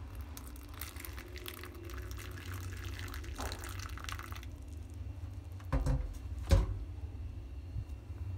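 Water poured from a stainless steel pot onto instant finger millet uji flour in a bowl, trickling for about four seconds. Then two sharp knocks, the loudest sounds, a little more than a second later.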